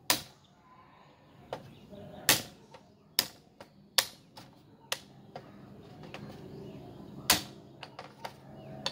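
Plastic checkers pieces set down one by one on a board, each landing with a sharp click: about eight clicks at uneven intervals, the loudest about seven seconds in, as the pieces are put back into a position.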